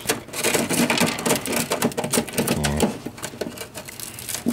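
Rapid, irregular clicking, tapping and scraping of a tool or hand against the rusted sheet metal under a VW bus.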